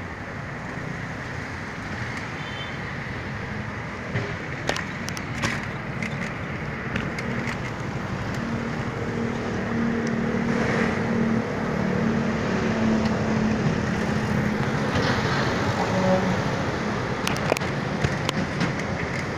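Busy street traffic: car and motorcycle engines running, with an engine drone swelling for several seconds midway. A few short knocks about four to five seconds in.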